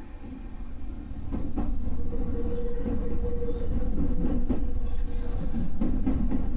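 Electric train running on the rails: a low rumble with repeated clacks over rail joints, growing louder over the first two seconds, and a steady tone for about three seconds in the middle.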